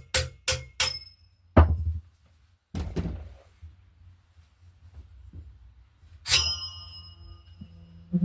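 Workshop knocks and clanks: a quick run of evenly spaced sharp taps that stops about a second in, two heavy thunks, then a loud strike about six seconds in that rings on like struck metal, and a small knock at the end.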